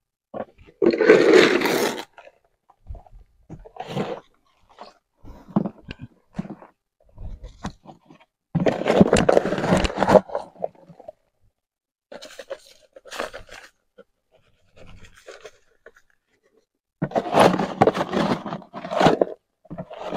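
Wood ash being scooped into a plastic bucket and tipped out onto the ground, heard as short, separate bursts of scraping and rustling.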